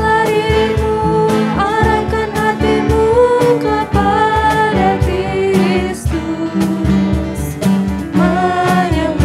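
Worship band playing a praise song with a steady beat: two voices singing into microphones over acoustic guitar, piano and cajon.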